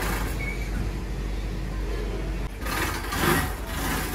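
Steady background hubbub of a busy indoor soft-play hall: a constant low rumble with faint, indistinct voices in the distance.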